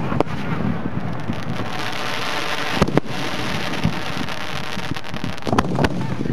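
Aerial firework shells launching from mortar tubes: a series of muffled, dull booms, one just after the start, two close together near three seconds, one near four and a quick cluster of three around five and a half seconds. Steady wind noise on the microphone runs underneath.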